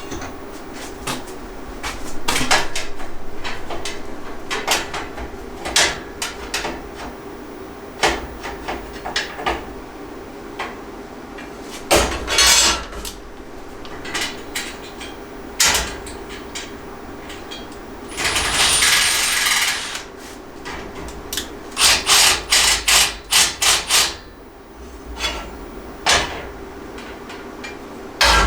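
Battery rack parts being knocked and tapped into place during assembly: scattered single knocks, a short scraping burst past the middle, then a quick run of about eight hammer-like strikes near the end. A faint steady hum runs underneath.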